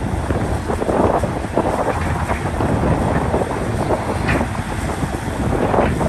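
Hitachi Zaxis 670LCH hydraulic excavator working at a dig: a steady engine rumble with irregular louder surges and a sharp knock a little after four seconds in.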